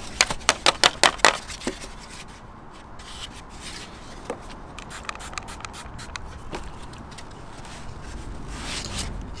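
A cloth rubbing and scraping over a sanded plastic bumper grille, wiping off the sanding dust before priming. It opens with a quick run of sharp taps over the first second or so, then settles into steady rubbing with a few small clicks.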